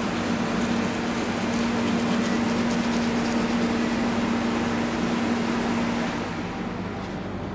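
Steady mechanical hum with an even hiss. Both drop away about six seconds in.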